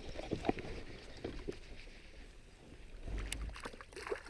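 A baitcasting reel is wound in while a hooked redfin is played on light line, with scattered light clicks and knocks of handling in a kayak. Near the end the redfin splashes at the surface.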